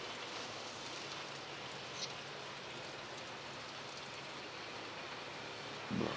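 Steady splashing and bubbling of water from the return pipes and aeration in a row of aquarium holding tanks, with a faint low hum underneath.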